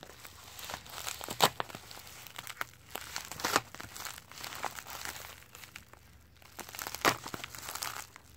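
Plastic bubble mailer crinkling as it is handled and cut open with a curved knife: irregular crinkling with a few sharper crackles.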